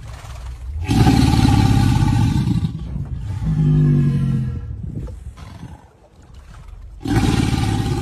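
Crocodile bellowing: loud, deep rumbling growls in bouts, one starting about a second in and another near the end, with a lower, pitched growl in the middle.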